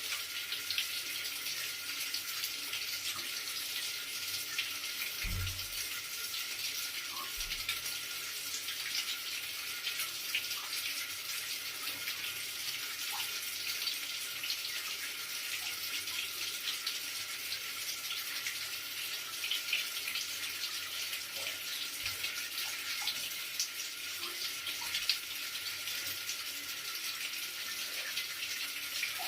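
Running water flowing steadily: an even, continuous splashing hiss with no break, with a couple of faint low bumps about five and seven seconds in.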